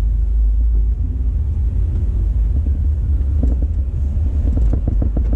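Steady low rumble of a car's engine and tyres on the road, heard from inside the cabin while driving in traffic.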